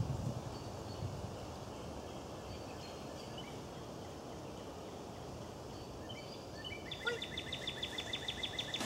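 Quiet pine-woodland ambience: a steady low rustling haze with scattered faint bird chirps, and a rapid, even trill of a bird joining about seven seconds in.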